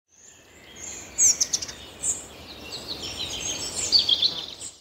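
Birds chirping and whistling, several high, short calls overlapping over a faint outdoor background, fading in at the start and dying away at the end.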